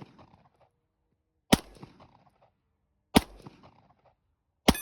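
Three 9mm pistol shots, about a second and a half apart, each a sharp crack with a short echo after it.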